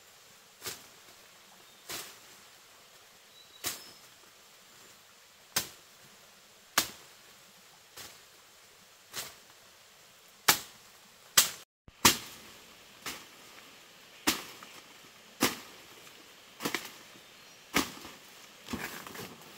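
Chopping strikes of a blade cutting through the stems of forest undergrowth: sharp single cracks about once a second, coming closer together near the end.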